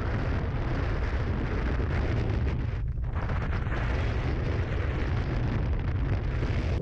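Strong wind buffeting the microphone: a heavy, steady low rumble with a hiss over it, cutting off abruptly at the end.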